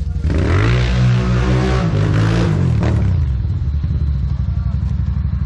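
ATV engine revving hard on a steep hill climb: its pitch rises within the first second, holds, then drops off around three seconds in, over a low, steady engine rumble.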